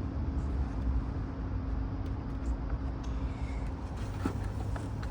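Steady low mechanical rumble with a constant hum that drops lower in pitch about four seconds in, with a few faint clicks.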